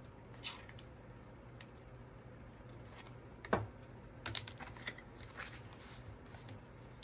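Scattered light clicks and paper crackle as the backing is lifted off double-sided tape with a hook tool and a paper flap is folded over and pressed down. One sharper knock comes about three and a half seconds in, followed by a quick run of small clicks.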